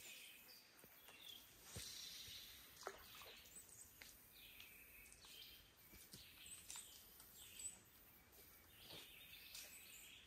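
Faint birdsong in the woods: scattered short chirps and calls over quiet outdoor background, with a few soft ticks.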